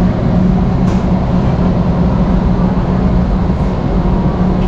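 Steady low hum and rumble of a large warehouse store's background noise, with a couple of faint clicks.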